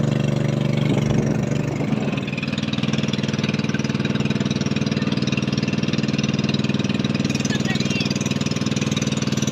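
Engine of a motorized outrigger boat (bangka) running steadily with a rapid, even beat. About two seconds in it settles to a slightly quieter, steadier note.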